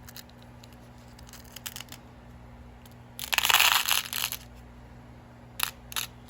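A small plastic bag of beads being handled: one rustling burst lasting about a second, a little past the middle, then two short clicks near the end.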